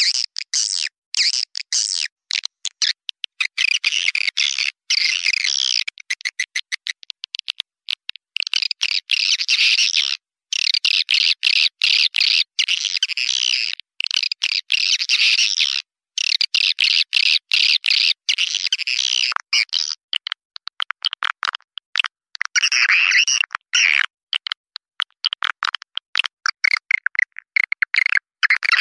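Edible-nest swiftlets twittering in a dense, high chatter: a recorded swiftlet calling sound of the kind played to lure swiftlets into nesting houses. The chatter cuts out abruptly and starts again many times.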